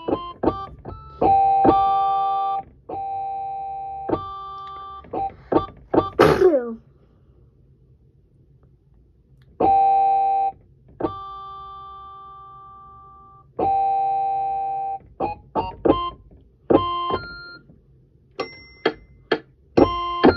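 Electric keyboard playing single notes and short runs on a plucked-string voice, each note dying away. About six seconds in there is a quick sweep, then a brief pause, a few long notes left to fade, and a faster run of notes near the end.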